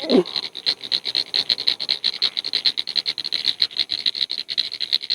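Frogs calling in a dense chorus: a fast, steady stream of high-pitched pulsing calls, many per second.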